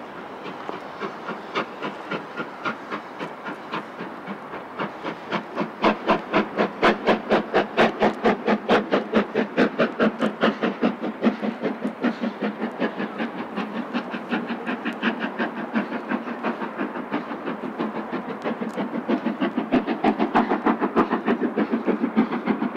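Steam locomotive's exhaust beats as it pulls away under power: a steady chuffing that starts at about two beats a second, grows much louder about six seconds in, and quickens to four or five beats a second as the engine gathers speed.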